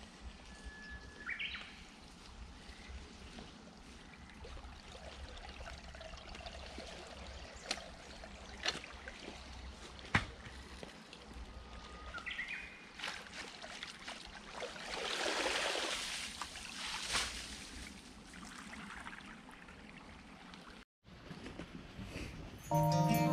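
Water flowing and trickling along a narrow concrete irrigation ditch, with a louder rushing swell for a couple of seconds midway. Birds call briefly twice, and a few sharp ticks sound around the middle.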